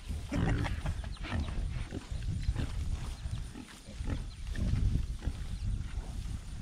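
A herd of pigs, sows and young piglets, grunting, with short high squeals, as they jostle for tossed apples.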